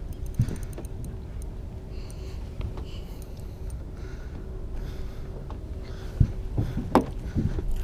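Wind rumbling on the microphone, with a couple of sharp knocks from handling the rod and reel about six and seven seconds in.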